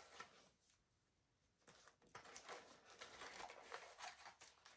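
Mostly near silence. From about two seconds in come faint, scattered clicks and rustles of hands handling a small plastic collectible figure and its packaging.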